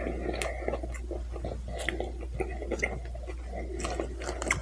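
A person chewing a mouthful of burger close to the microphone: soft, wet mouth sounds with many small clicks.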